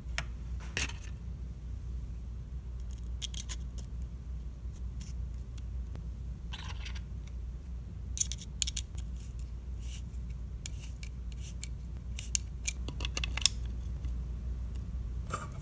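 Hard plastic RC truck chassis parts (shock tower and servo mount) clicking and scraping against each other and the metal chassis rails as they are handled and fitted, in scattered clusters of small clicks over a low steady hum.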